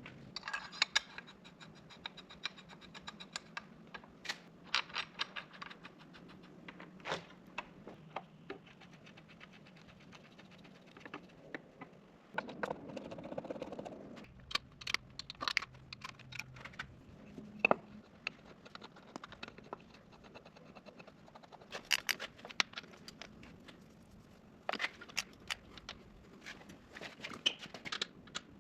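Metal hand tools, bolts and engine parts clinking, clicking and scraping as accessories are bolted onto a Cummins diesel engine block, with irregular sharp clicks throughout and a short burst of noise about twelve seconds in.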